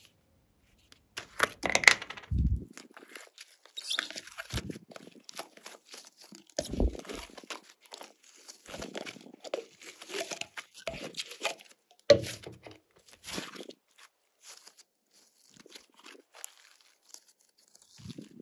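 Glossy slime being mixed and squeezed by hand, giving irregular bursts of sticky crackles and pops with a few dull thumps.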